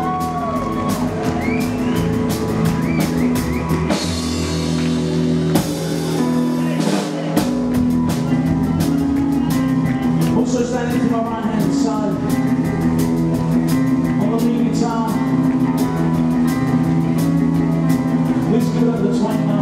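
Live rockabilly band playing with a steady beat: drum kit, double bass, keyboard and guitar. About five seconds in the low end drops out for a couple of seconds before the full band comes back in.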